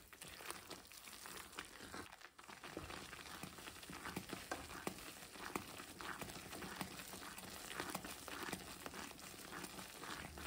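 Gram flour roasting in ghee in a steel kadhai, bubbling faintly with scattered small pops and crackles as it is stirred with a ladle; the besan has begun to roast and froth.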